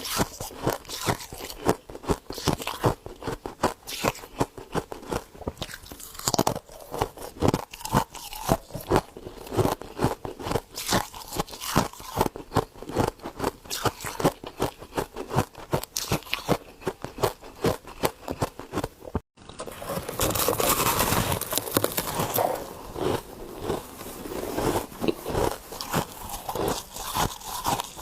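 Close-up crunching and chewing of frost ice, several sharp crunches a second. There is a brief break about two-thirds through, then denser, more continuous crunching.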